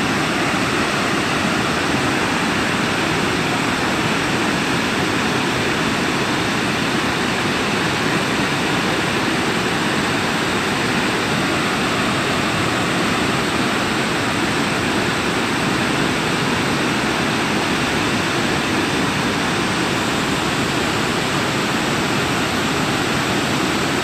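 Large waterfall on the Genesee River rushing steadily: an even, unbroken wash of falling water.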